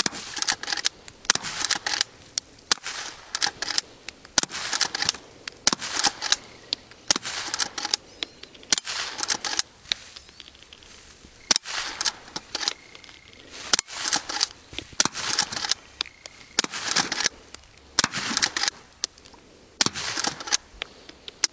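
Henry lever-action .22 carbine firing a quick string of quiet, subsonic CCI CB Long rounds. Each shot is a sharp crack, followed by the clack of the lever being worked, about once every second or so.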